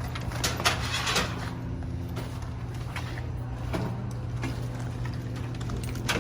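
Soda vending machine humming steadily, with a few short knocks and rattles from its front being handled, the loudest about a second in and near the end.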